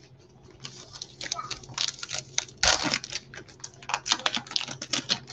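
Baseball trading cards handled by gloved hands: a quick run of clicks and rustles as cards are slid and flipped past one another, with a louder rustle about halfway through.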